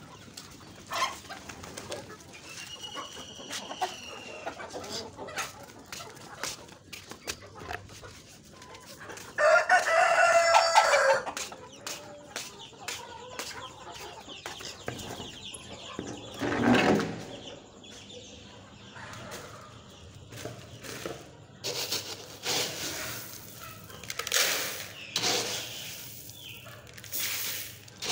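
A flock of desi chickens clucking, with a rooster crowing loudly for about two seconds near the middle. Short clicks, knocks and rustles of handling come more often toward the end.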